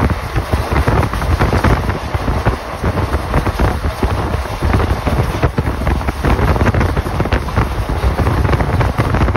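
Wind rushing and buffeting on the microphone of a phone filming from a moving vehicle, a loud, steady, gusty rumble with vehicle noise underneath.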